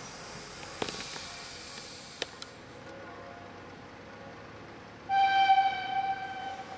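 Passenger coaches rolling past with a few clicks of wheels over rail joints, then, about five seconds in, a steam locomotive's whistle sounds one loud, steady blast that fades toward the end.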